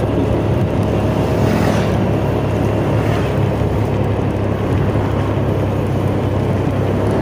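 Motorcycle engine running steadily at cruising speed during a ride, with a constant low hum and wind rushing over the microphone.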